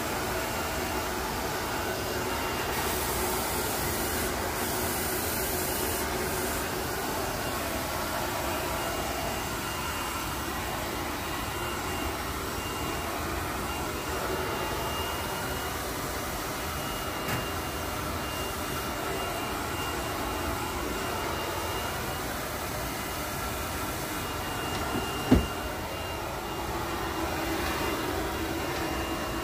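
Hand-held hair dryer blowing steadily with a thin high motor whine, used to blow-dry hair. A single sharp click sounds about 25 seconds in.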